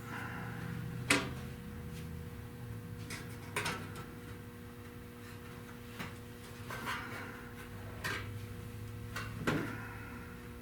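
Scattered clunks and scrapes of sheet-metal body panels being handled and pressed into place, over a steady electrical hum. The sharpest knock comes about a second in, another just before the end.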